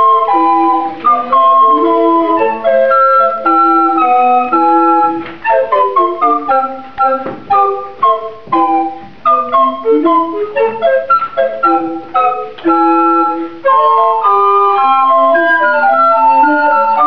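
A consort of recorders of several sizes, from small ones down to a long low recorder, playing an early-music piece in several parts at once. In the middle the notes turn short and detached for a few seconds before the held, flowing lines return.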